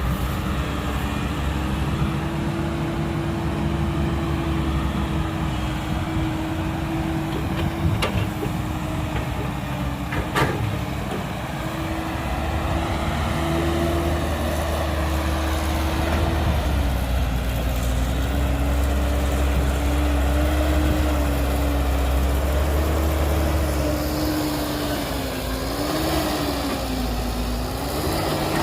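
Heavy diesel engine of earthmoving machinery running steadily, with a whine that wavers and dips in pitch a few times in the second half. Two sharp knocks stand out about eight and ten seconds in.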